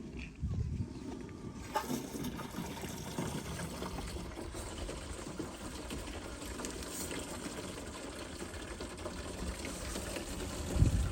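Water pouring and trickling steadily, with a dull low thud near the end.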